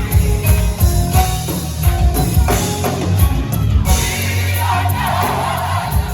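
Live gospel music: a band with heavy bass playing under singing voices, with a crowd shouting and cheering joining in over the last second or so.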